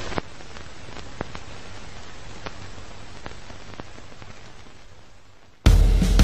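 Crackling static: a steady hiss with scattered clicks that slowly fades. About five and a half seconds in it is cut off by music starting suddenly with drums and bass.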